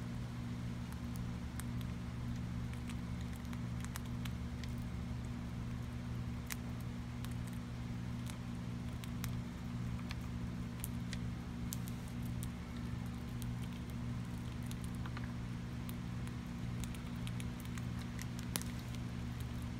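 Eastern gray squirrel gnawing and crunching food at a wooden feeder: scattered sharp clicks and cracks at irregular intervals. A steady low hum runs underneath.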